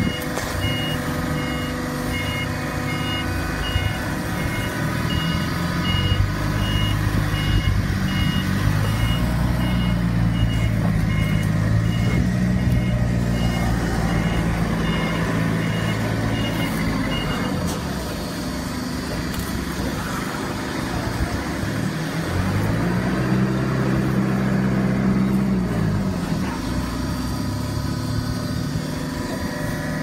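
Heavy machine running with an engine-like note that rises, holds for about ten seconds and drops, then rises and falls again briefly near the end. A high electronic beeper sounds about twice a second through the first half, then stops.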